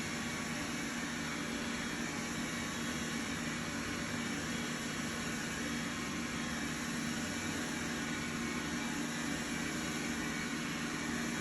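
Steady machine hum with even hiss, a motor running without change.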